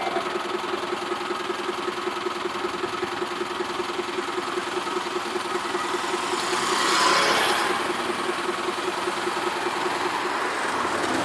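Railway level-crossing warning bell ringing with a fast, even pulse, then stopping about ten and a half seconds in. A rushing noise swells and fades around seven seconds in.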